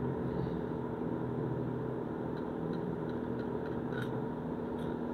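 Steady hum of a stick welding machine, with a few faint ticks and a brief crackle about four seconds in as the 7018 electrode strikes an arc.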